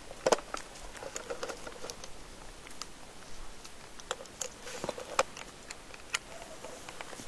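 Handling noise of a plastic trail camera being strapped to a pine trunk: irregular clicks, taps and rustles of the housing and mounting strap against the bark and hands, with a few sharper clicks.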